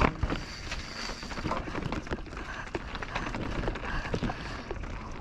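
Mountain bike descending a downhill trail, heard from the rider's camera: wind buffeting the microphone, tyres running over dirt and rock, and the bike rattling and clicking over bumps.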